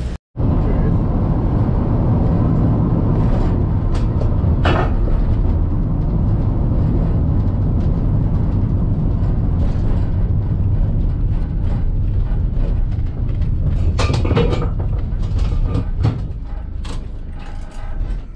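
Van engine running with a steady low rumble, heard loud from close by, with a few knocks and rattles about four seconds in and again near the end.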